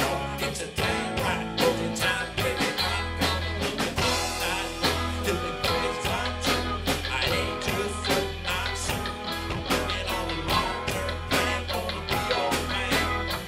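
Live country-rock band playing: electric guitars over bass and drums keeping a steady beat.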